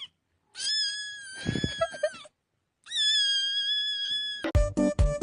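Cat meowing: two long, high-pitched drawn-out cries, with a few low thumps under the first. Upbeat electronic music with a steady beat starts near the end.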